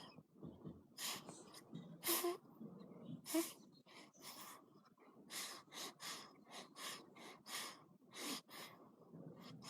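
A newborn snoring in its sleep: quick, snuffly breaths, about three a second, with a couple of short squeaky grunts a few seconds in.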